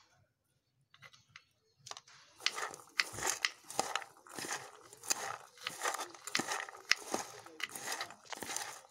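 A hand tossing chickpeas and chopped vegetables in a steel bowl: a moist, crunchy rustling in quick repeated strokes, about two a second, starting about two seconds in.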